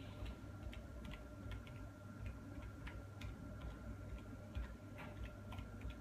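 Light, irregular clicks and ticks from small objects being handled at a shop counter, over a faint steady hum.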